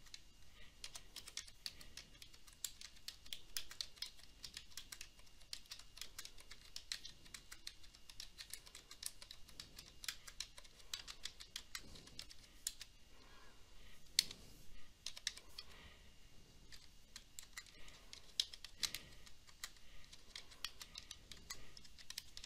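Faint, quick irregular clicking of computer keyboard keys as a list of numbers is typed in.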